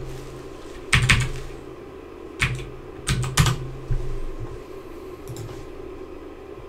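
A handful of separate keystrokes on a computer keyboard, with a pause between each, as commands are entered in a terminal, over a steady low hum.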